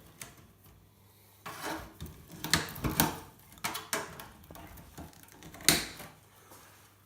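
Hands working inside an old PC tower: irregular clicks, knocks and scraping of metal and plastic parts and cables being handled and cut, with one sharp click about five and a half seconds in.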